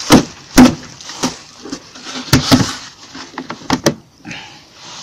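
Sharp knocks and cracks, some in quick pairs, as a polystyrene Segeberger hive box and its frames, stuck fast, are knocked apart from below. Faint rustling follows near the end.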